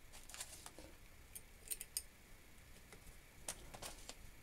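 Faint scattered clicks and light metal taps of small screws and a brass rule being handled and fitted onto a guillotine's metal frame, with a few sharper clicks about two seconds in and again near the end.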